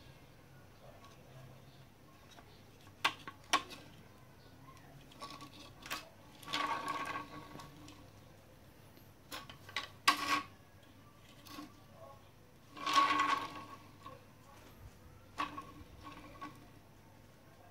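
Plastic toys being handled on a tiled floor: scattered sharp clicks and knocks, with two rushing noises of about a second each, one near the middle and one about three-quarters through.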